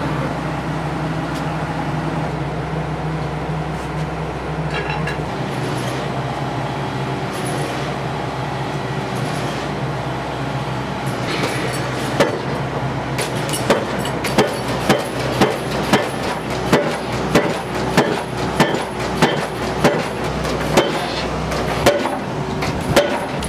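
Tracked piling rig's engine running steadily, then about halfway through its pile hammer starts striking the top of a square precast concrete pile, a sharp bang roughly every half second to second as the pile is driven into the ground.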